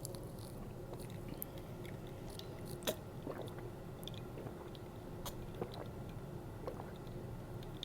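Close-miked chewing of cheesy pizza fries (seasoned fries with pepperoni and marinara), with scattered small wet mouth clicks and one sharper click about three seconds in. A steady low hum from a room air conditioner runs underneath.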